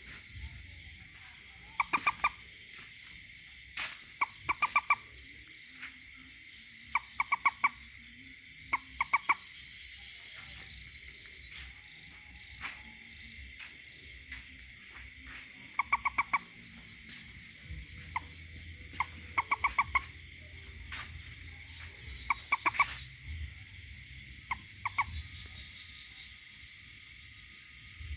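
A toad calling in short bursts of rapid pulses, a few pulses per burst, the bursts repeated irregularly every second or two.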